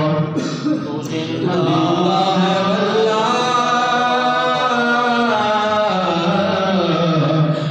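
A man reciting a naat, a devotional poem in praise of the Prophet, in a chanted melodic voice into a microphone, without instruments. After a short breath about a second in, he holds long, wavering notes.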